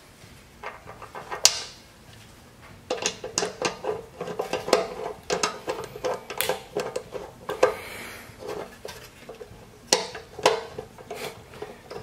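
Irregular sharp metal clicks and clinks from a screwdriver working the screws of a motorcycle fuel petcock on a steel gas tank, with small metal parts knocked about. There is one sharp click about a second and a half in, then a busy run of clicking that stops shortly before the end.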